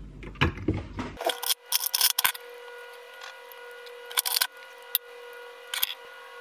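Small metal parts being handled: light clicks and taps as a miniature RC scale winch is fitted to its metal mounting bracket with a screwdriver. A quick cluster of clicks comes in the first couple of seconds, then single clicks about four and six seconds in.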